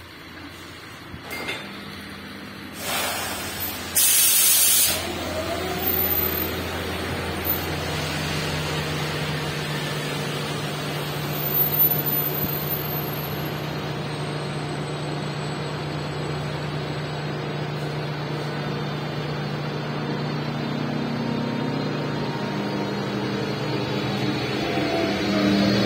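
ČD class 362 electric locomotive at the platform: two short loud bursts of air hiss about three and four seconds in, then a steady mechanical hum with a held low tone, getting louder with rising tones near the end as the locomotive starts to pull away.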